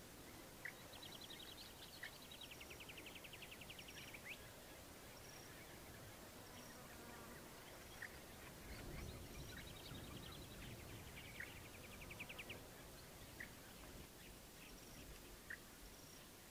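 Faint outdoor bird sounds: a small bird's rapid high trill twice, the second about ten seconds in, with short single chirps every couple of seconds between them. A faint, high, evenly repeating pulse runs underneath.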